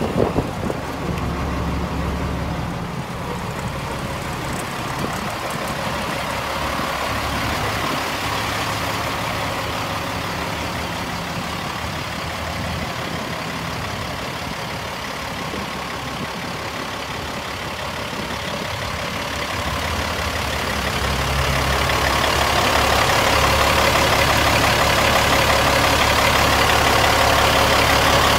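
Peterbilt 385 winch truck's Cat diesel engine idling steadily, growing louder about two-thirds of the way through.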